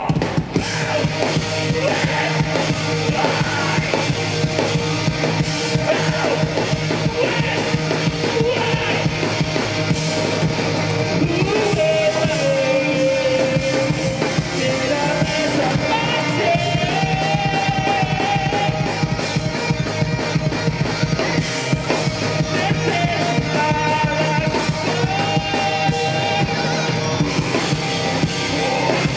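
Heavy rock band playing live over a PA: electric guitars and drum kit with a vocalist singing and yelling into a handheld microphone, his held sung notes standing out from about the middle on.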